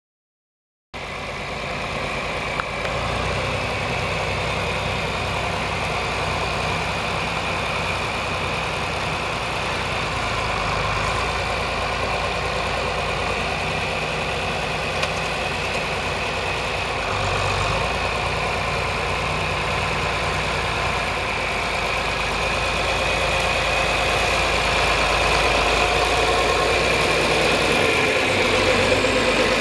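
1962 John Deere 4010 tractor's six-cylinder diesel engine running steadily, growing somewhat louder near the end.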